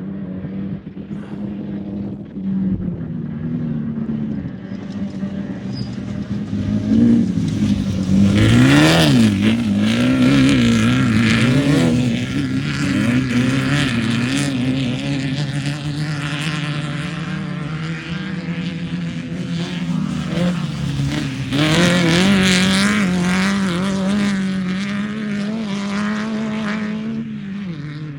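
Off-road race car's engine running hard and revving up and down, its pitch wavering repeatedly. It grows loudest about a third of the way in and again around three quarters through.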